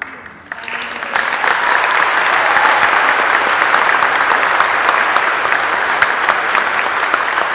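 Crowd applauding, the clapping building up over the first second and then holding steady.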